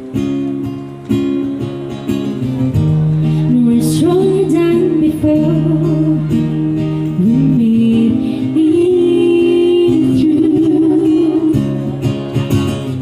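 Acoustic band music: acoustic guitar and held bass notes, with a singing voice carrying the melody from about four seconds in.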